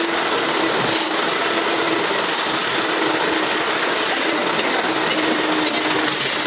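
Industrial wet-and-dry vacuum cleaner running, its hose nozzle sucking up water from wet pavement: a steady rush of air with a low hum that fades in and out.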